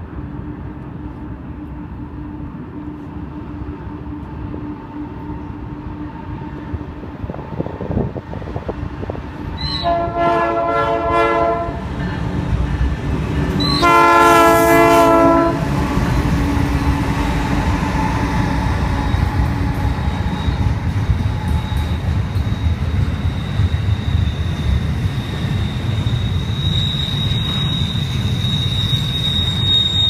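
Norfolk Southern freight locomotive's P3 air horn sounding two chord blasts of about two seconds each, roughly ten and fourteen seconds in, the second louder. The locomotive and double-stack intermodal cars then rumble past, and a high steady wheel squeal joins near the end.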